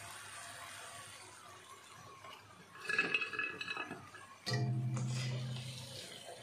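A wire spider skimmer clinks against a ceramic plate about three seconds in, with a brief ringing tone as it sets down fried namak paray. A steady low hum follows for about a second and a half.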